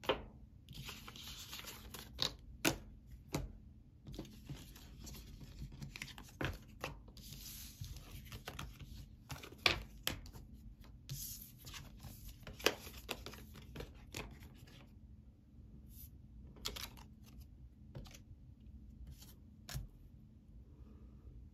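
Tarot cards being shuffled and handled: spells of papery rustling broken by sharp taps and flicks, thinning out to a few scattered taps over the last third.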